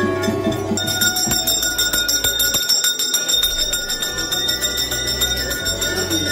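Temple bells ringing, struck over and over many times a second, their high ringing tones held steady from about a second in, with music underneath.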